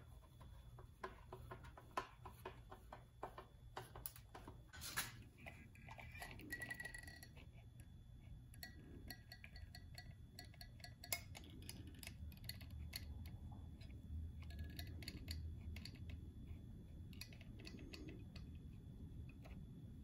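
Faint scattered clicks and taps of hand work on a steel ammo can lid, first with a screwdriver, then while clear silicone sealant is run from a tube along the seam, over a faint steady low hum.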